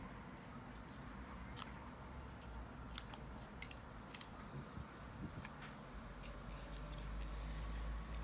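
Scattered light clicks and taps of small tools and plastic parts being handled while a Casper Via A1 laptop is taken apart, over a low steady hum that grows louder about six seconds in.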